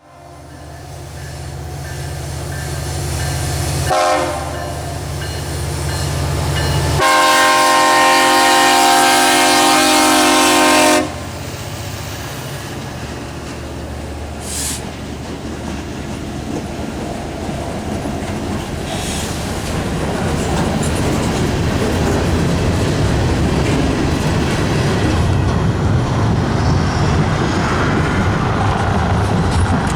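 Rebuilt EMD diesel freight locomotives running, their engines a steady low drone, with a short horn toot about four seconds in. About seven seconds in the multi-chime air horn sounds one long blast for about four seconds, then the train's wheels and cars grow steadily louder as it passes, with clickety-clack on the rails.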